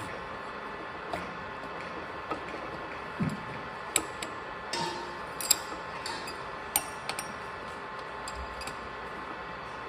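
Metalworking lathe running with a steady hum, with sharp metallic clicks and clinks scattered through, the loudest about four, five and a half and seven seconds in.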